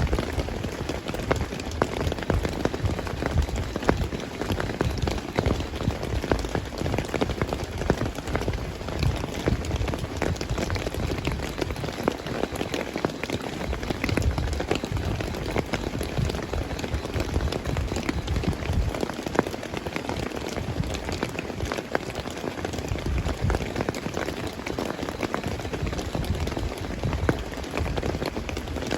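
Heavy rain falling steadily, a dense patter of countless drops striking surfaces.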